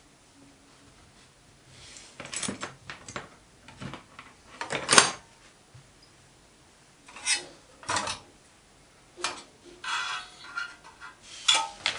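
Workbench handling noises as thin copper pipe is bent with a hand tube bender and by hand: a scatter of metal clicks, knocks and rubbing, the loudest knock about five seconds in. The first two seconds are quiet.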